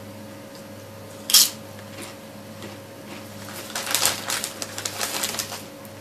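Crinkling of a plastic snack wrapper being handled, in irregular crackles that bunch up in the second half, with one sharp click about a second in. A steady low electrical hum runs underneath.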